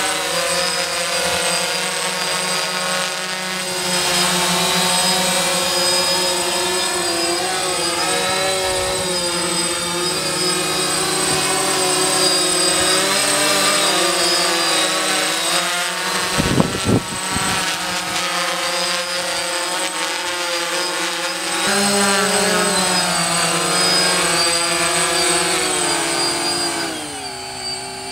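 Quadcopter drone's propellers buzzing as it hovers and manoeuvres, their pitch wavering up and down as the motors speed up and slow down. A brief low thump comes about two-thirds through, and near the end the buzz falls in pitch and gets quieter.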